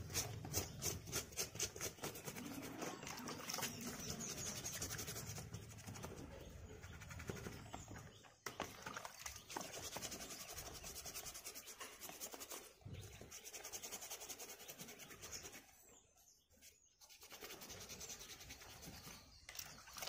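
Hands scrubbing the plastic mesh of an air-conditioner filter in shallow water, rubbing it to loosen the dust. Quick strokes in the first couple of seconds give way to steadier rubbing and splashing, with a short lull near the end.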